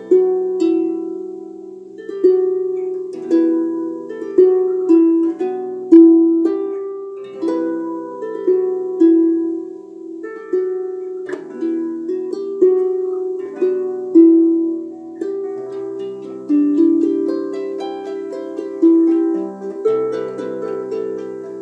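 Harp being plucked in a slow melody over lower chords, each note ringing on and fading, about one stroke a second.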